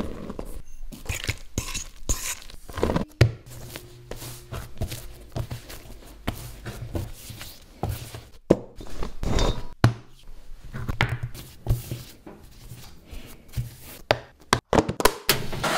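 Pizza dough being made by hand: flour tipped into a stainless steel bowl, then the dough worked and shaped into balls on a stone benchtop and set into a plastic tub. The sound is a string of short knocks, thuds and handling noises.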